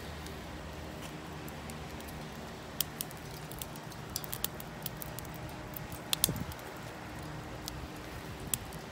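Charcoal burning in a metal chimney starter, crackling with scattered sharp pops and ticks from about three seconds in, the loudest cluster a little past the middle. A steady low machine hum runs underneath.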